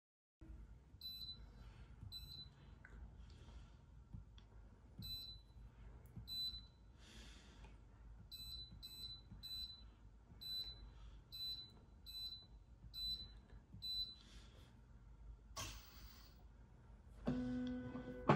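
Touchscreen keypad of an Infracont SGrain grain analyzer beeping once for each key tap as a password is entered: about fourteen short, high beeps at irregular spacing, some in quick runs. Near the end a lower, steady tone sets in.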